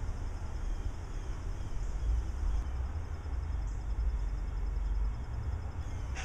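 Outdoor ambience made up mostly of a steady, fluctuating low rumble.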